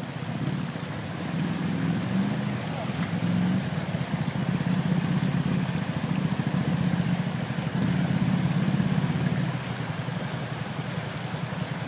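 Arctic Cat Mud Pro 1000 quad's V-twin engine running as it wades through a rocky stream, over the steady rush of the flowing water. The engine grows louder about four seconds in and eases near the end.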